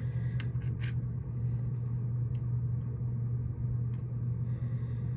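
A steady low hum, with a few light clicks and taps as wet rocks are handled in the fingers.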